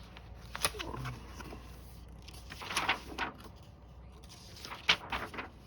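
Handling noises: a sharp click about half a second in, a short rustle around the middle, and another sharp click followed by a brief rustle near the end.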